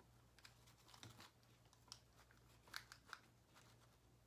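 Near silence: faint, scattered light clicks and rustles of hands pressing decorative starfish and sailboat pieces into fishnet inside a basket, over a steady low hum.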